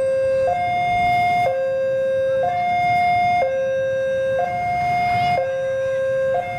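Railway level-crossing warning alarm sounding its electronic two-tone signal, switching between a lower and a higher tone about once a second to warn of an approaching train. A low rumble from the oncoming CC206 diesel locomotive runs underneath.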